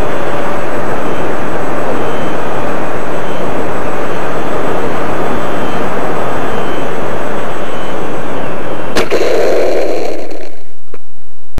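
Twin-motor electric RC plane heard from a camera mounted on it while it rolls along the ground: a loud, distorted rush of propeller and wind noise. About nine seconds in there is a sharp knock, followed by a brief rumble.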